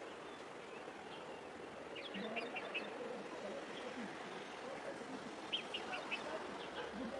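Birds chirping: a quick run of short high chirps about two seconds in and another about five and a half seconds in, over a steady outdoor background.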